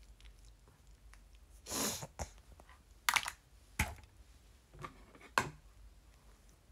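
Close handling noise: a short rustle about two seconds in, followed by five or six sharp clicks and knocks of small objects being picked up and set down.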